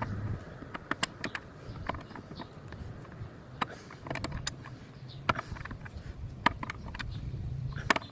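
Irregular sharp clicks and light knocks of hand tools and parts being handled in a car's engine bay during a PCV valve replacement.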